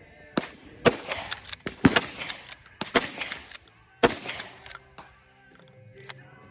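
Mossberg Maverick 88 12-gauge pump-action shotgun firing four loud shots about a second apart, with smaller sharp cracks between them. The shots stop about four seconds in, and music plays underneath.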